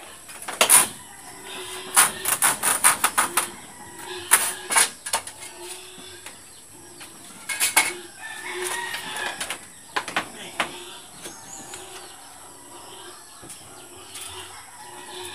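Scattered sharp knocks and taps of wood-frame carpentry work, with a quick cluster of them about two seconds in and more every few seconds after, fading toward the end.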